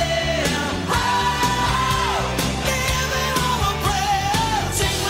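Background music: a rock song with a sung vocal line holding and bending notes over a full band.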